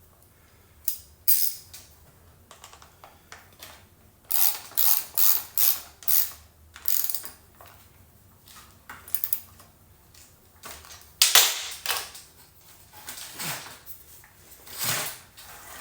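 Stihl MS 201 C-M chainsaw's chain and bar being worked by hand while the chain tension is set: short clicks and rasps in irregular runs. There is a quick series of about six a few seconds in, and the loudest one comes near the middle.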